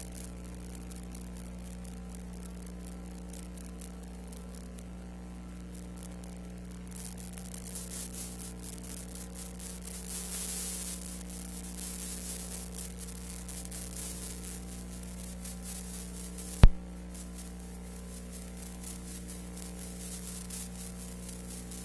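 Steady electrical hum and hiss with no other sound, the noise of an old film transfer, broken by one sharp click about two-thirds of the way through.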